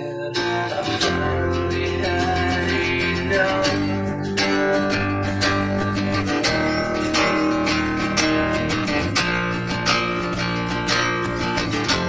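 Two acoustic guitars strumming chords together in a steady rhythm, an instrumental stretch of a rock song played live with no singing.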